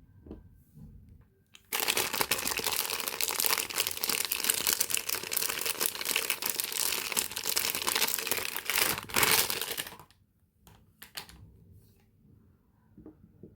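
Soap packaging wrapper crinkling as it is handled and unwrapped. It starts suddenly just under two seconds in and runs for about eight seconds, dense and crackly, then gives way to a few faint taps.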